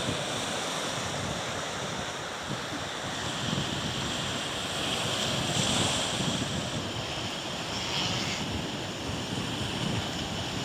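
Steady rush of wind and waves, with wind buffeting the microphone; the loudness swells and eases a little without stopping.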